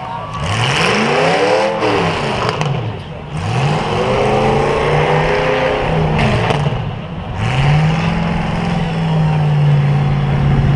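Demolition derby car engines revving up and falling back several times, then held at high revs near the end as a car spins its wheels in the dirt.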